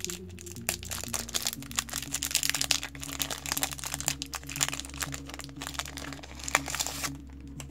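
Foil Yu-Gi-Oh! booster pack wrapper being crinkled and torn open by hand, a dense irregular crackle that stops shortly before the end, over soft background music.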